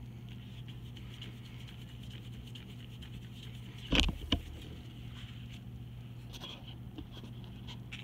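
A flat paintbrush brushing faintly across paper, with two sharp knocks close together about halfway through as the brushes in the tray are handled and the camera is jolted.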